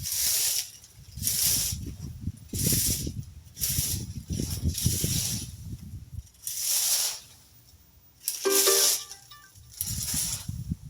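Rake strokes dragging leaves and twig debris across the ground, a scraping swish about every second or so, around eight strokes in all. One stroke late on carries a short squeal from the tines. Wind rumbles on the microphone under the first half.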